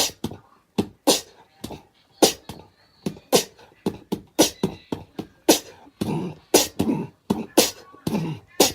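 Rhythmic beatbox-like percussive beat: sharp hits about two a second, with a stronger accent roughly once a second.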